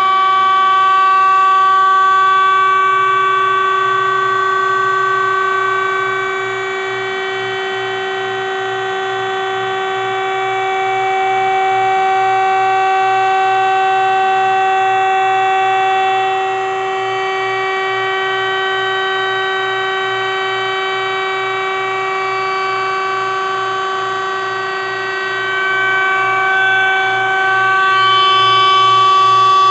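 Hydraulic power unit of a Zwack F-20 upender, an electric motor driving a hydraulic pump, running with a steady whine of several tones over a faint rapid pulsing. Its loudness drops a little about six seconds in and again after about sixteen seconds, then rises near the end.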